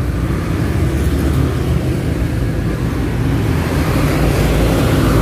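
Motor traffic passing close by on the road, a steady engine rumble that grows louder toward the end as a vehicle comes nearer.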